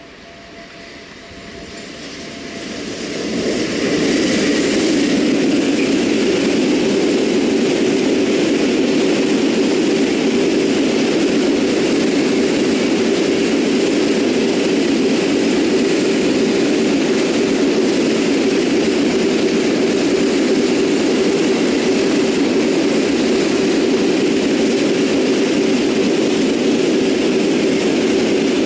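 PKP ET22 six-axle electric freight locomotive approaching and passing, growing louder over the first four seconds, then a long train of loaded Smms flat wagons rolling by with a steady noise of wheels on rails.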